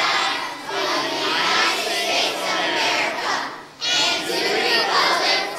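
A large group of children and adults reciting a pledge aloud together in unison, with a brief pause about three and a half seconds in before they go on.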